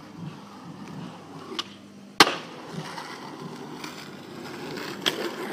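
Skateboard ollie down a short stair set: wheels rolling on concrete, a small click of the tail popping, then a loud sharp slap of the board landing about two seconds in. The wheels keep rolling after the landing, with another small click near the end.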